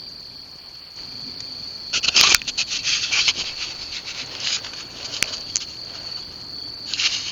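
Crickets and other grass insects trilling steadily at a high pitch. About two seconds in, a loud burst of rustling crackle starts and trails off over a couple of seconds, and a shorter one comes near the end.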